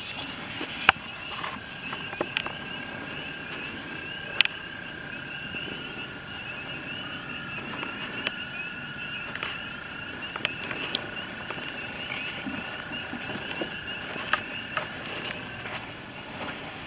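A chorus of frogs calling, a dense run of many short rising chirps that keeps going throughout. A steady whine sits underneath for most of it, and a few sharp clicks or knocks stand out, the loudest about a second in and about four and a half seconds in.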